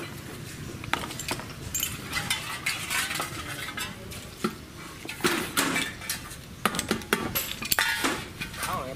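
Steel three-jaw gear puller clinking and clanking against a gear and bearing as its jaws are fitted and worked by hand: a string of irregular metal clicks and rattles, coming thicker and louder in the second half.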